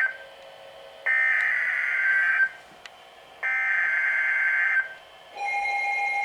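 Emergency Alert System SAME header: two bursts of buzzing, warbling data tones, each about a second and a half long with a second's pause between, the digital code that announces a new alert, here a severe thunderstorm warning. About five seconds in, a steady alert tone begins.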